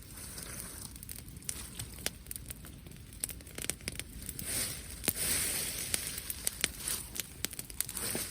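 Wood fire crackling, with frequent sharp snaps and pops over a steady hiss, and a louder hiss about five seconds in.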